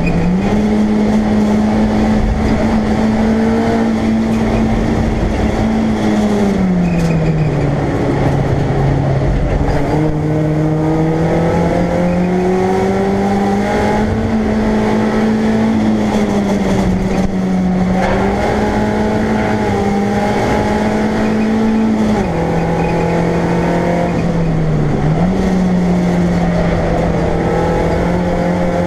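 BMW Compact race car's engine heard from inside the stripped cabin, running hard under load. Its pitch climbs and drops several times as the driver brakes and shifts gears, over a steady rush of road and wind noise.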